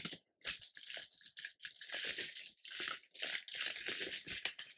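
Air fryer parchment paper liner crinkling as it is folded and pressed by hand, in a run of irregular rustles with brief pauses.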